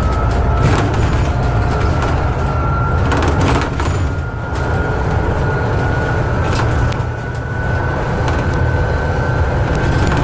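Inside a Scania Citywide CNG city bus under way: the compressed-natural-gas engine and drivetrain give a steady low rumble, with a thin whine that slowly rises in pitch. A few sharp knocks and rattles come through a few seconds in.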